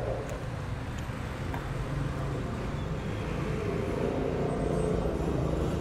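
Street traffic: a motor vehicle's engine running as it passes, a steady low rumble that grows louder toward the end and eases off.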